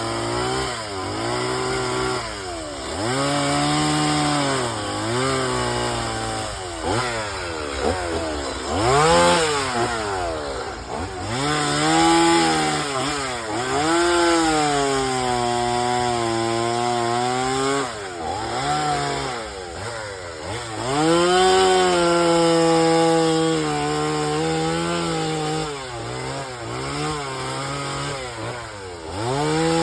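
Two-stroke chainsaw cutting wood, its engine revving up and dropping back again and again as the throttle is worked.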